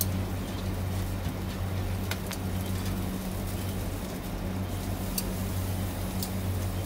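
Pork slices grilling on a wire mesh over a charcoal fire, under a steady low hum, with a few sharp clicks as metal tongs turn the meat on the grill.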